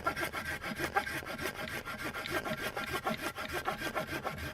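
Hand saw cutting a kerf into a piece of wood in steady, rapid back-and-forth strokes: the third of three saw slits that will be knocked out to form a notch.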